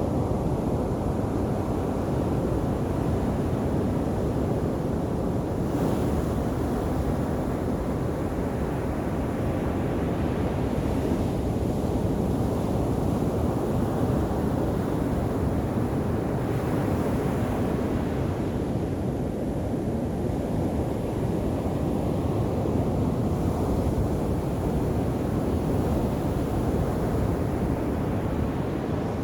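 Sea waves breaking on a beach: a continuous rushing wash, swelling with a new breaker about every five or six seconds.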